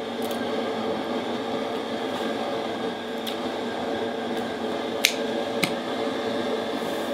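Kitchen shears snipping through raw chicken: four sharp snips, the two loudest about half a second apart late on, over a steady background hum.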